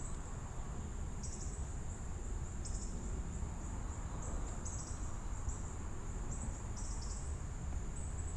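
Insects trilling: a steady high-pitched trill with louder chirps laid over it every second or so, irregularly, above a low rumble.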